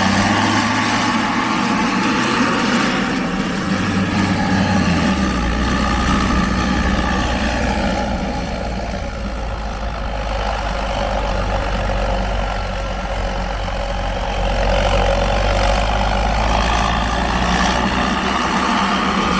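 A vehicle engine running on the move, with road noise throughout; the low engine note drops about five seconds in.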